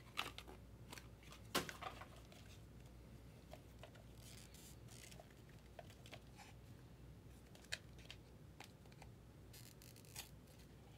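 Faint handling of a trading-card box and its packaging: scattered light clicks and taps, a sharper click about a second and a half in, and a brief rustle around four to five seconds in.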